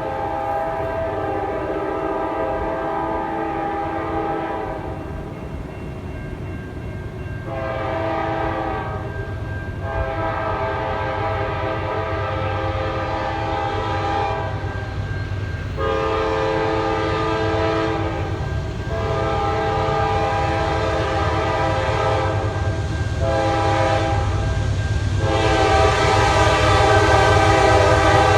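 Nathan K5LA five-chime horn on a Norfolk Southern GE Dash 9 locomotive sounding a series of long blasts separated by short breaks. Under it runs the steady low rumble of the diesel locomotives working at full throttle up a steep grade. The sound grows louder near the end as the train comes closer.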